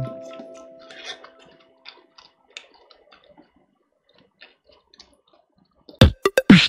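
Background music fades out at the start, leaving faint, scattered clicks and crunches of closed-mouth chewing. About six seconds in, electronic music with a hard, steady beat starts loudly.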